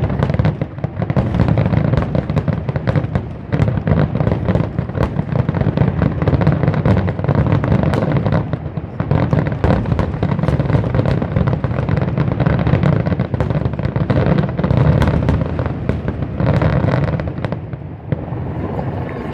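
Dense barrage of aerial firework shells bursting in rapid succession: booms and crackling overlap without a break, then thin out near the end.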